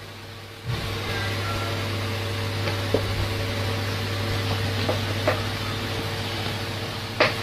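A steady low mechanical hum with a few short, light knocks over it and a louder knock near the end.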